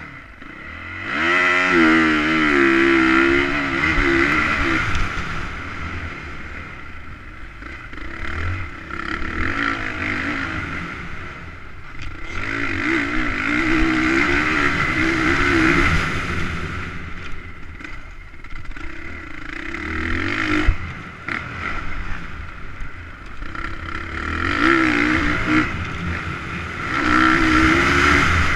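Motocross bike engine revving hard under acceleration and easing off for corners, in repeated surges with the pitch climbing through each one.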